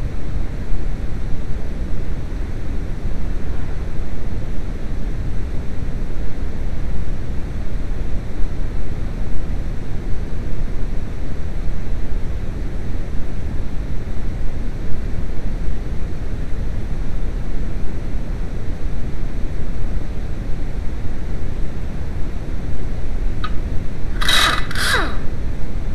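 Steady low rumbling noise throughout. Near the end, an air impact wrench fires two short bursts, loosening the 16 mm sway-bar bolts on the front suspension.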